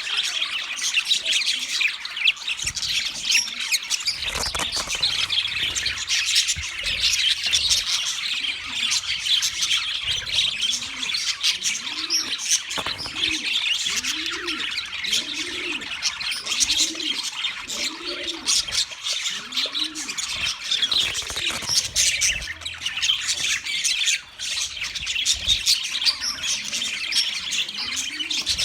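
A flock of budgerigars chirping and chattering continuously in dense, high twittering calls. A low cooing call repeats about once a second through the middle stretch and again near the end.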